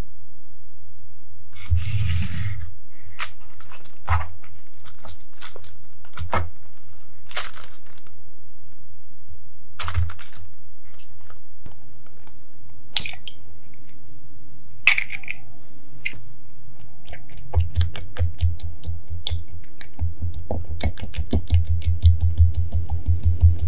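Plastic cling film crinkling and rustling as it is smoothed over a tray of shaped dough. About halfway through, an egg is cracked open over a small glass bowl. In the last several seconds a fork beats the egg against the glass in a fast run of clicks and taps.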